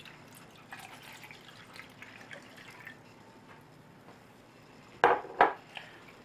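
Water poured from a glass measuring cup into a Primus tea kettle, a soft steady trickle for about three seconds. About five seconds in, two sharp knocks as the glass cup is set down on the tiled counter.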